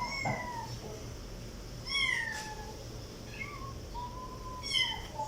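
Kitten meowing repeatedly: several short, high-pitched meows, most falling in pitch.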